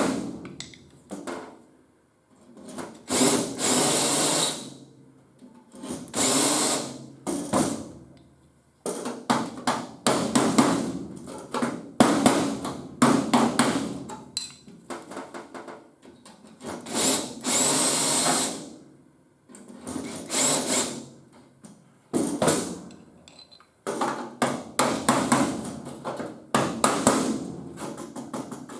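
Power drill run in repeated short spells of a second or two, between clusters of sharp hammer knocks on sheet metal.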